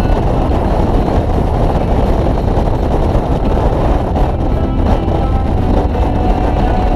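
Harley-Davidson touring motorcycle running steadily at road speed, its engine under a constant rush of wind on the microphone.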